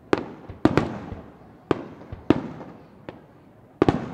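Aerial firework shells bursting in the sky: about eight sharp bangs at irregular intervals, with a close pair near the end, each trailing off in echo.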